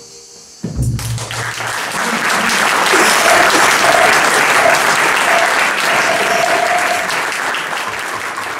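The band's last low note ends the music just under a second in, then the audience breaks into applause that swells, holds and begins to fade near the end. Short high whistle-like notes sound several times through the clapping.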